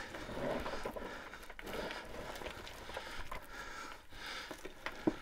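A person scrambling over loose rock: irregular scuffs, crunches and small knocks of boots on rubble, with a couple of sharper knocks near the end.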